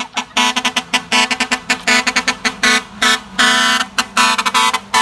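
Truck horn sounded in a fast, rhythmic string of short pitched blasts, like a tune on a musical air horn.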